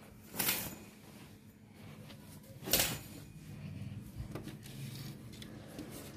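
Two brief rustling scrapes about two seconds apart, the second the louder, over a faint steady hum: a phone being handled and moved among cloth curtains.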